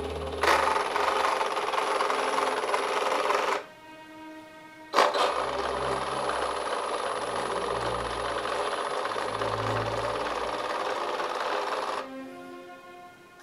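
Small electric drive motor of a radio-controlled model S-100 Schnellboot running under throttle in two runs, each starting and stopping abruptly, with a thin high whine over the buzz.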